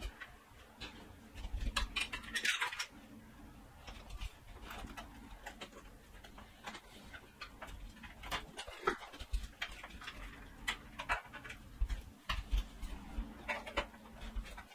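Plastic cables, connectors and tubing being handled, with scattered light clicks and knocks and some rustling, while power cables are routed and plugged in.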